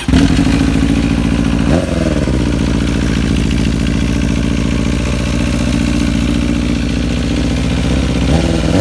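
Motorcycle engine idling with the noise of a worn timing (cam) chain, a chain due for replacement. It is revved briefly about two seconds in and again near the end, each time falling back to idle.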